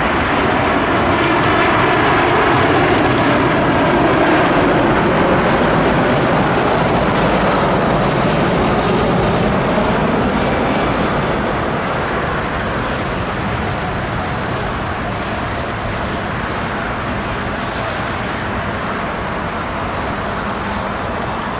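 Four-engined Airbus A340-300 airliner on final approach, a steady jet engine noise that is loudest a few seconds in and then slowly fades.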